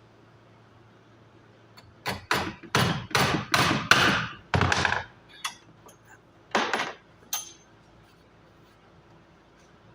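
A hammer striking wood. After about two seconds comes a quick run of about seven blows in three seconds, followed by three more spaced-out strikes.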